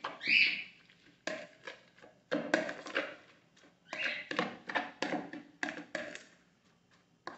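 Metal spoon stirring a wet mix of grated vegetables and egg batter in a bowl: a run of irregular scraping and knocking strokes against the bowl, with soft squelches from the mixture.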